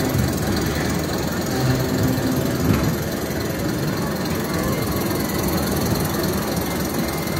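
Steady low rumble and rattle of a spinning teacup-style kiddie ride, its locomotive-shaped cars running round the platform.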